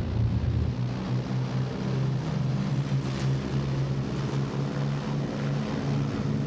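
Propeller aircraft engines droning steadily in flight as the plane passes, a low-pitched drone that shifts slightly in pitch.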